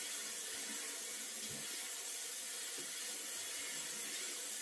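Kitchen faucet running steadily into the sink while dishes are washed, with a few faint knocks from items handled in the basin.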